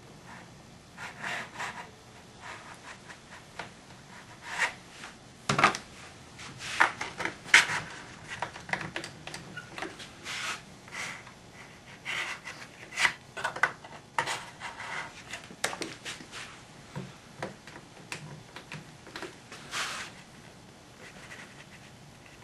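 Irwin one-handed bar clamps being set on and squeezed tight along a glued-up wooden organ pipe: irregular clicks and knocks of the clamps, with wood rubbing against wood. A few louder knocks come about a third of the way in.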